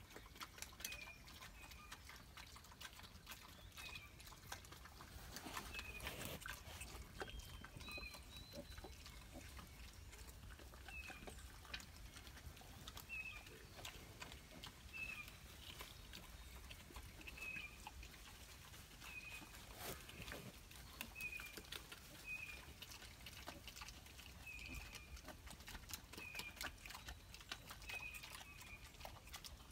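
Hampshire × Texas wild hog piglets giving faint, short, high squeaks, one every second or two, with light scuffling and rustling in the sand.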